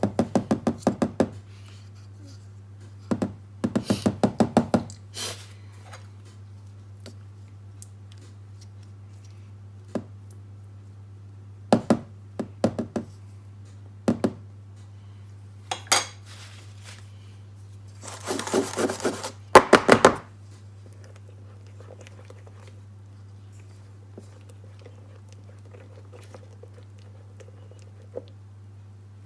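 Runs of rapid clicking and separate knocks, with one longer rattling burst about two thirds through, as kitchenware is handled over a steady low hum.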